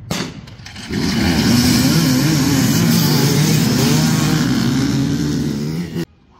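Enduro dirt bike engine running hard, its note wavering up and down as the revs change, with heavy rushing noise over it. It starts with a sudden loud burst and cuts off abruptly about six seconds in.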